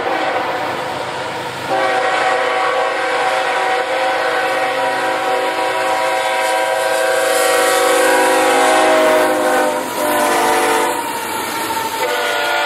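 Freight train locomotive's multi-chime air horn sounding for a grade crossing as the train approaches: a long blast, a short one about ten seconds in, then another long blast starting near the end as the train reaches the crossing. Under the horn is the steady rumble of the train, with wheels clattering on the rails as the cars go by.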